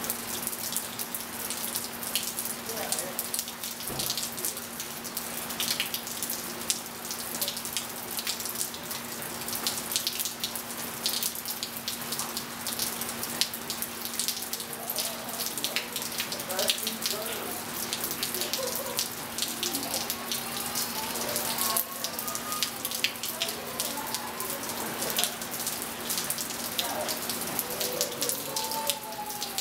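Rain falling and dripping on a pool and wet patio tiles: many sharp drop splats over a steady patter, with a steady low hum underneath.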